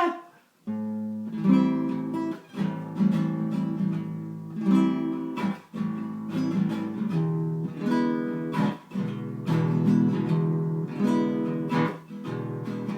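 Acoustic guitar playing an introduction, chords strummed and ringing with brief pauses between them.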